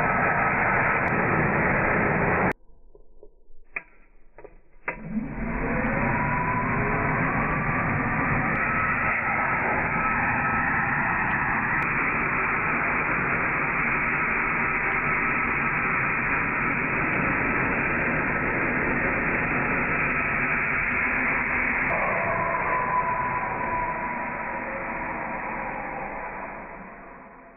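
Compressed air blasting dust out of a desktop PC's power supply, slowed down with the slow-motion picture: a loud, steady, dull hiss. It stops about two and a half seconds in, gives a few short puffs, then runs steadily again before fading out near the end.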